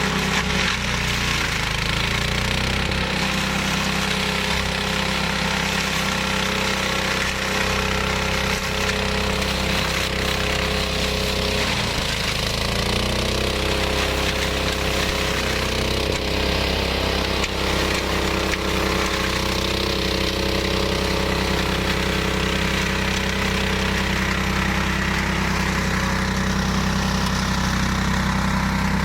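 The 15 hp Hyundai engine of a flail mower running steadily, its note dipping briefly about twelve seconds in and then recovering.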